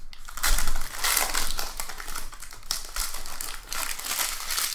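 Foil trading card pack being torn open and crinkled by hand, an irregular crackling rustle that is loudest about half a second in.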